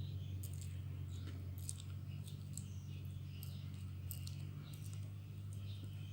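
Homemade glue slime being handled and squeezed, giving scattered small sticky clicks and crackles; the slime is still slightly tacky. A steady low hum runs underneath.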